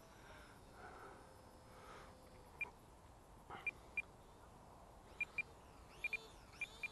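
Short high beeps from the radio transmitter, singly and in quick pairs, starting about two and a half seconds in. They signal that the throttle stick is at its halfway point.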